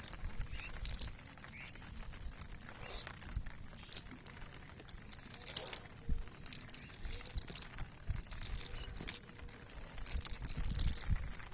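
Irregular rustling and crackling with scattered sharp clicks, over a faint low rumble.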